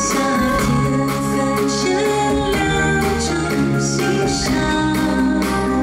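Live pop band playing with a woman singing lead through a microphone, over a steady beat.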